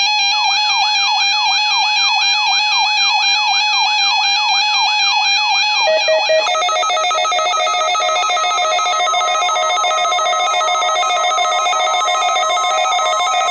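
Electronic siren-style alert tone: a wail sweeping rapidly up and down, about two to three times a second, that switches about six seconds in to a layered warbling electronic tone.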